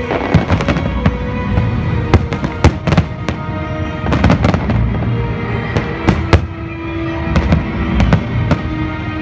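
Aerial firework shells bursting in quick succession: many sharp bangs, some singly and some in rapid clusters, with crackling between them.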